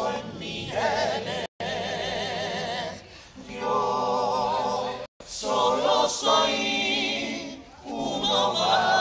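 Carnival murga chorus of men singing together in Spanish, long phrases of held notes with vibrato. The sound cuts out for an instant twice.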